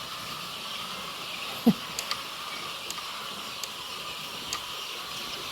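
Steady hiss-like room noise among a flock of young chickens, with scattered light clicks and one short falling squeak about 1.7 s in.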